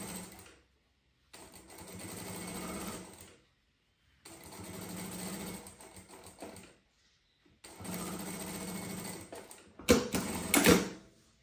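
Jack industrial lockstitch sewing machine stitching a zipper onto quilted fabric, running in bursts of two to three seconds with short silent pauses between. Near the end come two loud clacks.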